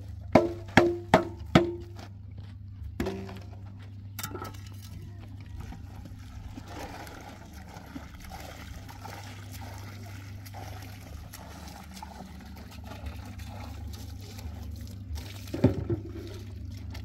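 Water pouring from a plastic jug into a hollow in a heap of sand, a steady splashing trickle. It follows four quick hollow knocks near the start, and a few more knocks come near the end, over a steady low hum.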